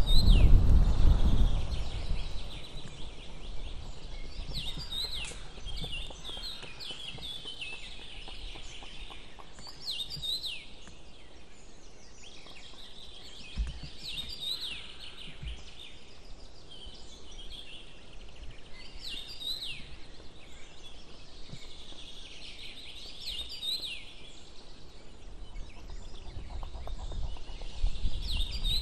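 A songbird singing short, quick phrases of downward-sweeping notes, repeated every two to three seconds. A low rumble is loud in the first two seconds and rises again near the end.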